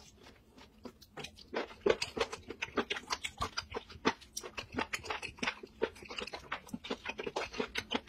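Close-up mouth sounds of chewing spicy braised octopus: a quick run of wet clicks and smacks, several a second, starting about a second and a half in.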